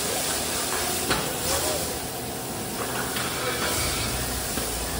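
A jet of water from a car-wash hose nozzle hissing steadily as it sprays a car's side and the wet floor.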